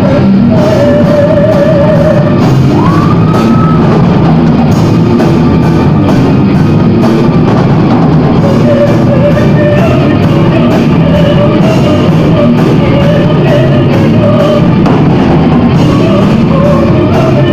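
Gothic metal band playing live: drum kit, guitars and singing in long held notes, with one upward slide about three seconds in. The recording is very loud throughout.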